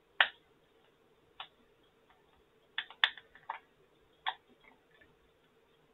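Hard plastic toy parts clicking and tapping as they are pressed and snapped together by hand: about six sharp, uneven clicks, the loudest right at the start.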